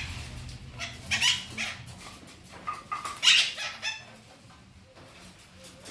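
Green parrot giving a string of short, harsh squawks, in two clusters about a second and about three seconds in, the loudest just past three seconds, then falling quiet.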